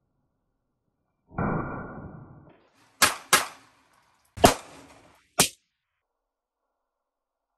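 Smith & Wesson M&P9 Shield Plus 9mm pistol firing five shots at an uneven pace. The first shot is duller, and the next four are sharp cracks with a short ringing tail, the middle two fired in quick succession.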